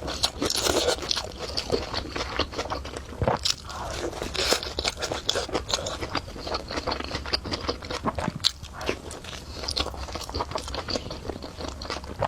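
A person chewing and eating food close to the microphone, with many quick, irregular clicks.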